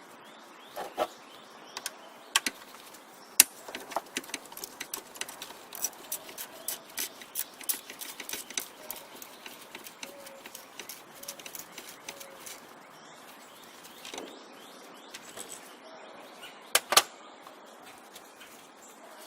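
Irregular clicks, taps and light knocks of hand tools and parts being handled while an ignition coil is unbolted and unplugged. They come thick over the first half and thin out later, with a pair of sharp clicks near the end.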